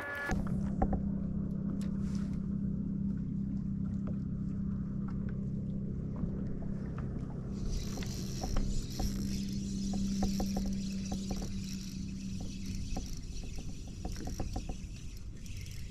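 A fishing kayak's electric trolling motor switches on just after the start and runs with a steady hum. From about halfway, a spinning reel gives light scattered clicks during the retrieve.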